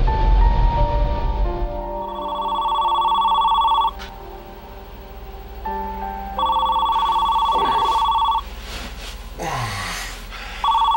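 Telephone ringing with a warbling electronic trill, three rings of about two seconds each, the third cut short as it is picked up. Soft orchestral music plays underneath and swells at the start.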